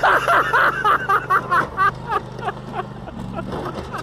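A person laughing hard in quick repeated bursts, about four to five a second, trailing off after about two seconds, over the steady low running of a riding lawn tractor's engine.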